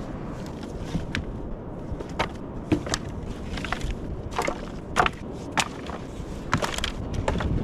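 Pieces of driftwood knocking and clattering against one another as they are stacked into a bonfire pile: a dozen or so sharp wooden knocks at uneven intervals over a low steady background.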